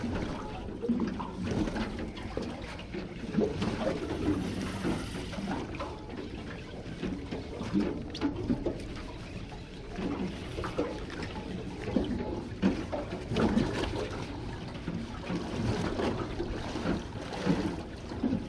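Water lapping and splashing against the hull of a small aluminium fishing boat, an uneven run of small slaps.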